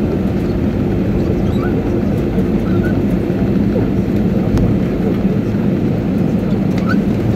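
Cabin noise inside an Airbus A319 rolling on the runway just after landing: a steady low rumble from the wheels and engines, with an even hum.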